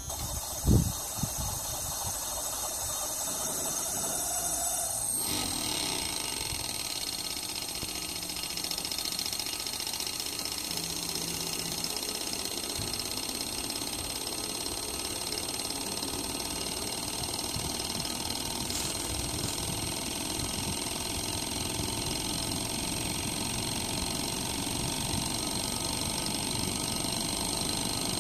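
Panasonic heat pump's compressor running with a steady, rapid mechanical rattle, the noise of a compressor the owner judges defective. A loud knock comes about a second in, and a high steady whine joins about five seconds in.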